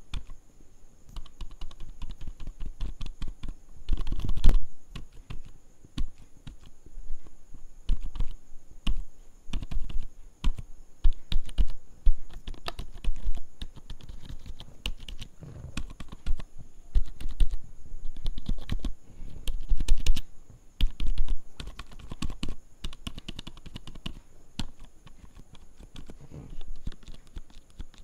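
Fast, irregular tapping and clicking on the keys of a low-profile HP keyboard, mostly the spacebar, in quick runs of key presses, with louder flurries about four seconds in and again around twenty seconds.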